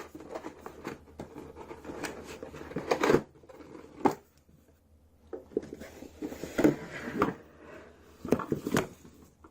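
Keyboard packaging being handled as the contents are lifted out of the box: irregular rustling with several sharp knocks, the loudest about three seconds in, and a brief lull around the middle.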